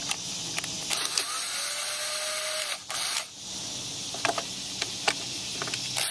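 Cordless electric screwdriver with a nut-driver bit whirring as it backs out a nut on a lawn mower engine's air filter cover. The motor runs for about two seconds, its pitch rising slightly, then stops; a shorter burst follows, then a few clicks.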